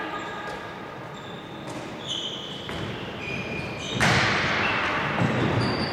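Handball play on an indoor court: short high squeaks of sports shoes on the wooden floor and the ball bouncing, echoing in a large hall. About four seconds in, a sudden loud burst of noise rings through the hall and fades over a couple of seconds.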